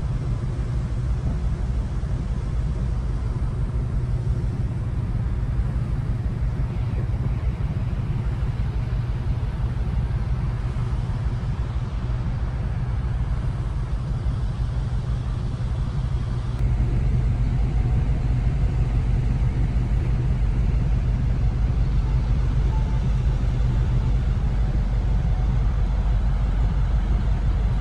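Steady low rumble of a large car ferry underway, heard aboard, growing a little louder about two-thirds of the way through.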